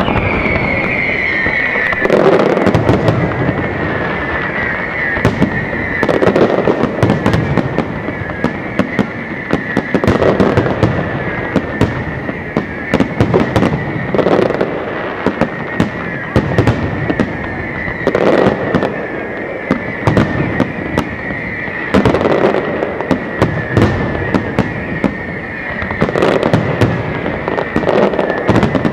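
Aerial fireworks display: a dense run of sharp bangs and crackles, with heavier booms about every four seconds. Underneath runs a steady high whistling tone that slides down a little at the start and then holds.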